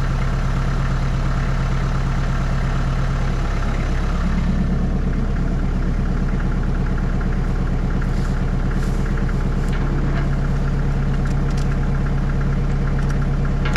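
Tractor engine running steadily, its note shifting about four seconds in.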